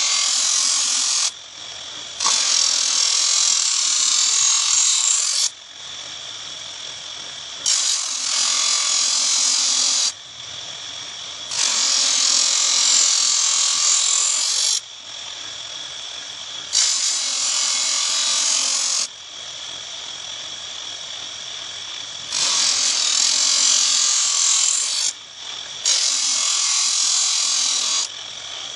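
A small electric knife-sharpening machine runs with a steady whine while a knife blade is pressed against its spinning abrasive in repeated passes, each a loud hissing grind lasting two to three seconds, seven times over.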